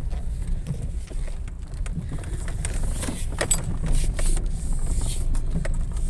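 Steady low road and engine rumble inside a moving car, with scattered small clicks and knocks of the cabin rattling, more of them around the middle.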